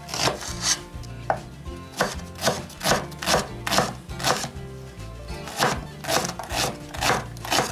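Kitchen knife chopping an onion into small dice on a wooden cutting board, the blade knocking the board in quick, uneven strokes about twice a second.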